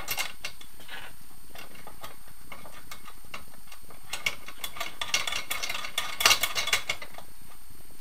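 Light metallic clicks and clinks of a wrench nipping up the bolt through a motorcycle crankcase, scattered at first, with a quicker run of clicks about five to seven seconds in.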